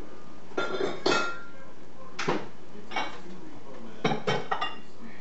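Kitchen dishes and utensils clinking and clattering: about eight sharp clinks with brief ringing, in a cluster about a second in, two single clinks around two and three seconds, and a quick run of clinks near the end.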